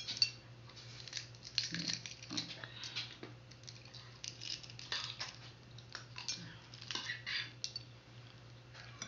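Balut (fertilized duck egg) shell being cracked and picked off by hand: a run of small, irregular crackles and clicks as bits of shell break away, with a low steady hum underneath.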